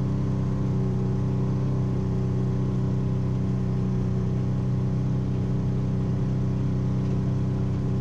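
Side-by-side UTV engine running steadily at low speed, a constant hum heard from inside the open cab.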